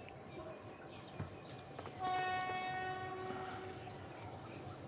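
Diesel locomotive horn sounding once: a single steady blast starting about two seconds in and fading out after about a second.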